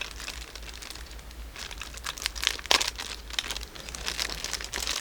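Packaging crinkling and crackling in the hands as a coin is lifted out of its box, with one sharper knock about halfway through.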